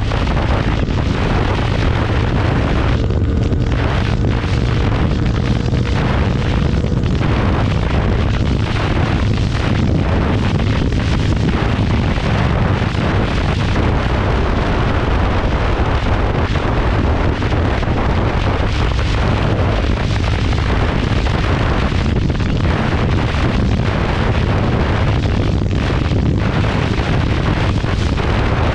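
Loud, steady wind buffeting on the microphone of a Royal Enfield Continental GT 650 being ridden at high speed, with the bike's 650 cc parallel-twin engine running underneath.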